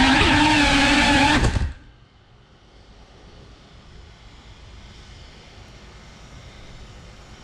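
FPV quadcopter's brushless motors and propellers whining with a slightly wavering pitch, then cutting off abruptly about a second and a half in as the drone stops; only a faint hiss remains.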